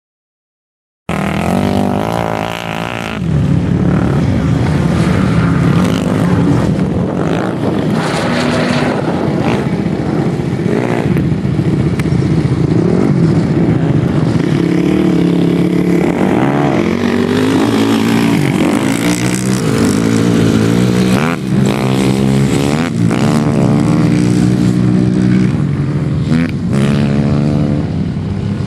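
Off-road 4x4 engines running hard and revving through sand, the pitch repeatedly climbing and dropping. The sound starts suddenly about a second in, after silence.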